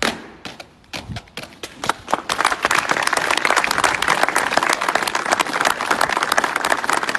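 A few scattered handclaps that swell into steady applause from a crowd about two seconds in.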